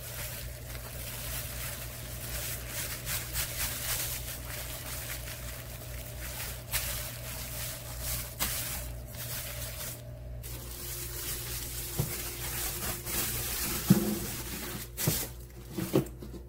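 Thin plastic bag rustling and crinkling as it is wrapped and tied around a paper-wrapped fish. After about ten seconds, a few short knocks and clinks as things are moved about in an open refrigerator.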